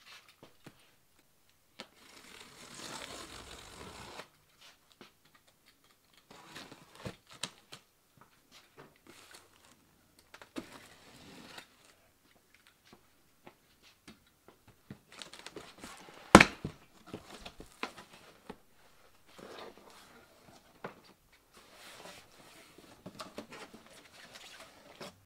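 Cardboard shipping box being opened by hand: scattered tearing, rustling and scraping of tape and cardboard flaps, with one sharp knock about sixteen seconds in.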